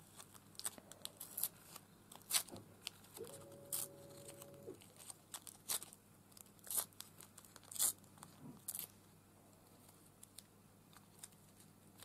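Washi tape being torn and picked apart by hand: a string of short, crisp rips and crinkles that thin out after about nine seconds.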